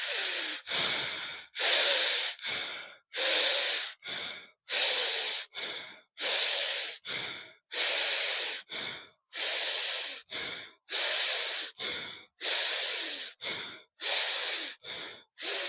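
A man breathing forcefully in and out through his nose in a pranayama breathing exercise, done at a slow, even pace. Each cycle is a longer, louder breath followed by a shorter, softer one, about one cycle every second and a half.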